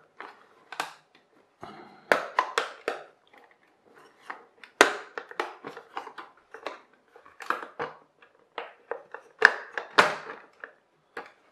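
Hard plastic toy car body being prised apart from its chassis: irregular sharp clicks, cracks and knocks of plastic parts flexing and snapping.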